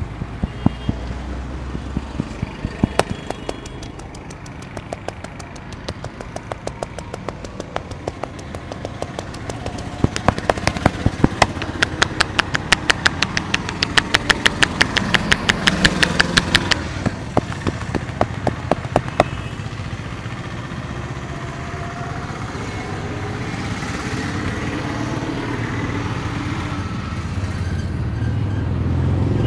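A barber's hands slapping and tapping on a head during an Indian head massage: runs of sharp smacks that settle into a fast even rhythm of about seven a second midway, then stop about two-thirds of the way through. Steady street traffic runs underneath and grows louder near the end.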